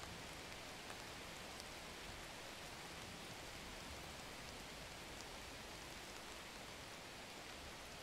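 Faint, steady hiss of background noise, the ambience of a "silence" sound effect, with a few tiny ticks scattered through it.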